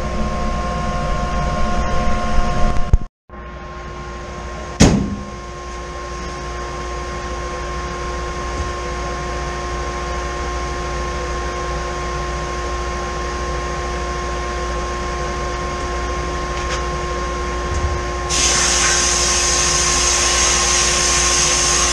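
Bead blast cabinet at work on two-stroke engine cases: a steady mechanical hum with a single sharp knock about five seconds in, then near the end the blast gun opens with a loud, even hiss of compressed air and blasting media.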